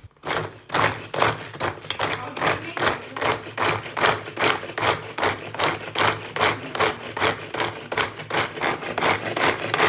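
Hand-powered vegetable chopper being worked over and over, its spinning blades chopping a carrot in the bowl with about three rasping strokes a second.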